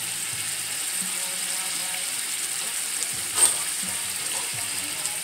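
Chicken thighs sizzling steadily as they brown in oil in a stainless steel skillet, with one sharp click about three and a half seconds in.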